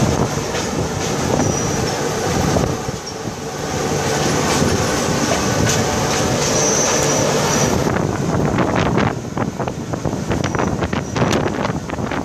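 Passenger train running on rails, heard from an open coach door while passing a local train on the next track: a steady rumble of wheels and rushing air. From about eight seconds in, the wheels clatter in a quick run of sharp clicks over rail joints.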